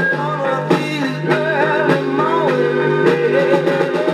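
A 1960s rock-and-roll/soul 45 rpm single with singing, guitar and drums, playing through the small built-in amplifier and speaker of a restored 1953 RCA Victrola 45EY2 Bakelite record player. The sound is thin, with almost no deep bass.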